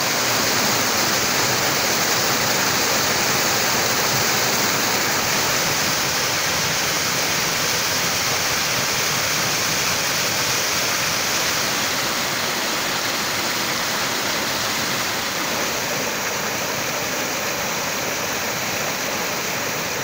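A mountain-stream waterfall plunging over a rock ledge and splashing onto stones: a steady rush of falling water, easing a little in the second half.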